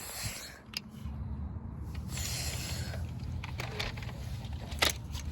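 Handling noise from a camera being picked up after its tripod fell: two short stretches of rustling and a few sharp knocks over a low steady rumble.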